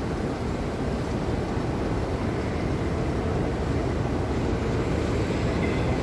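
Diesel engine of a Sri Lanka Railways class M4 locomotive running steadily, a continuous low rumble with a faint steady hum.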